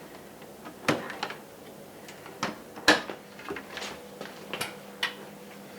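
Irregular light clicks and knocks of plastic parts as a Fisher & Paykel dishwasher drawer is handled after reassembly of its door latch.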